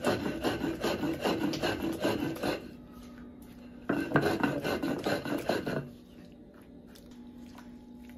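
Stone hand roller (metlapil) grinding wet salsa verde ingredients on a volcanic-stone metate: rapid rasping back-and-forth strokes. The strokes pause about two and a half seconds in, start again about a second later, and stop about six seconds in.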